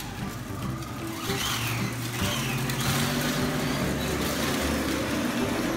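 Battery-powered ride-on Ford Mustang toy car driving off across a concrete floor, its electric motors and plastic wheels running from about a second in, on its newly replaced battery. Background music plays underneath.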